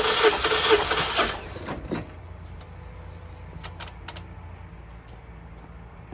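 Starter cranking a 2014 Mazda 3's 2.0L four-cylinder engine for a compression test, with the spark plugs out and the fuel pump disabled so it cannot fire, pulsing about three times a second. The cranking stops about a second in, leaving a low hum and a few light clicks.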